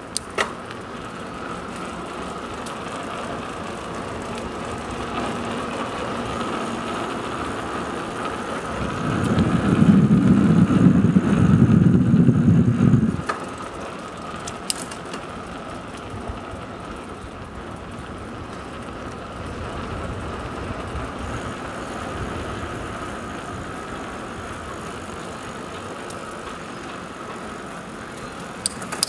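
Steady rolling noise from a bicycle being ridden along a trail, with a faint steady whine. A louder low rumble sets in about nine seconds in and lasts about four seconds, and a few small clicks come through.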